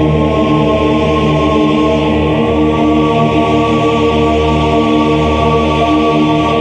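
Dramatic soundtrack music: a choir chanting on steady, sustained notes.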